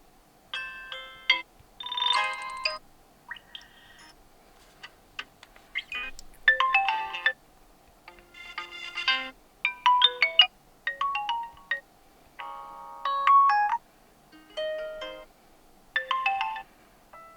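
Vivo V15 Pro smartphone playing its built-in system tones one after another: a string of about a dozen short melodic chimes, each lasting under a second and made of several notes, with brief pauses between them.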